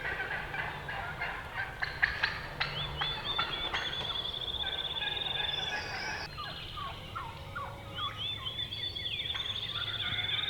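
Wild turkeys gobbling, with repeated rattling gobbles that overlap one another.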